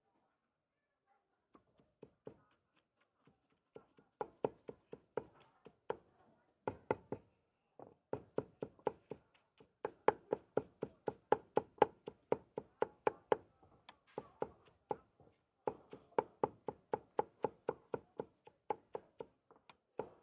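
Cleaver chopping braised pork on a wooden chopping board for roujiamo filling: rapid knocks, about four a second, in runs of several seconds with short pauses, starting about four seconds in.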